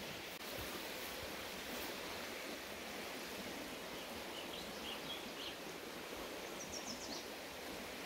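Shallow rocky creek running steadily over stones. Faint small-bird chirps come in from about halfway, with a quick, high descending trill near the end.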